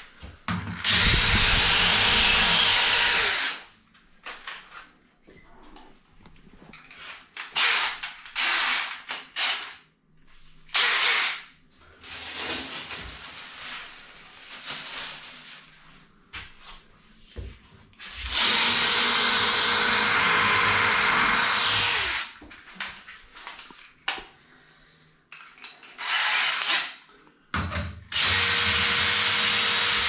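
Cordless drill boring holes in a ceramic-tiled wall for wall plugs, in three runs of a few seconds each. The motor holds a steady whine during each run, with handling clicks and knocks in between.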